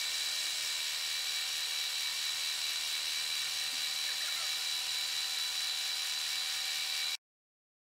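Milling machine spindle running an end mill through a metal part: a steady high-pitched whine with hiss. It cuts off suddenly about seven seconds in.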